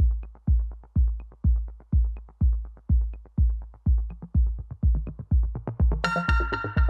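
Electronic background music with a steady kick drum about two beats a second and light ticks between the beats; a bright synth chord comes in near the end.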